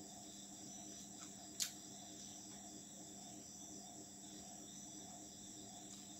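Faint, steady chirping of crickets over a low electrical hum, with a single sharp click about a second and a half in.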